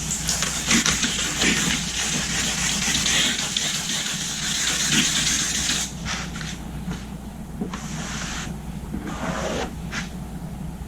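Wet sandpaper rubbing back and forth over fresh automotive paint: hand color sanding to level orange peel and trash. A dense, steady hiss of quick strokes for about six seconds, then slower separate strokes, over a steady low hum.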